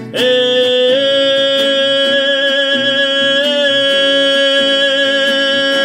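Song: a singer holds one long high note over an accompaniment with a regular strummed or tapped beat.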